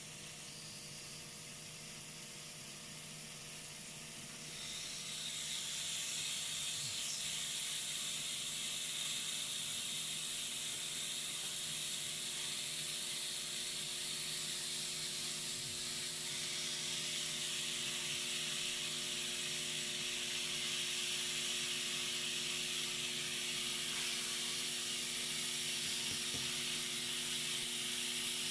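Thin marinated pork strips sizzling on a hot electric grill plate, a steady hiss that grows louder about five seconds in and then holds. A faint steady hum runs underneath.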